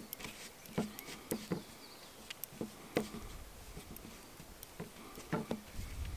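Hands kneading a stiff flour-and-water dough in a carved wooden bowl: irregular soft knocks and pats as fingers press the dough against the wood.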